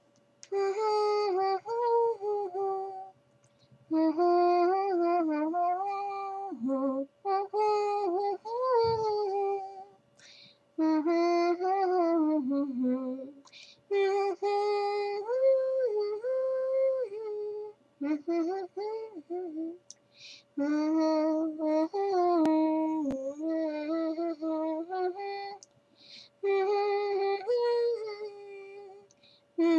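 A woman humming a wordless tune in short melodic phrases of two to three seconds, with brief pauses between them.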